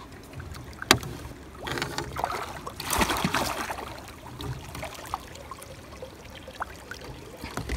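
A hooked channel catfish thrashing and splashing at the water's surface as it is grabbed by hand and lifted into the boat, loudest about two to four seconds in. A single sharp knock sounds about a second in, and a few light clicks follow.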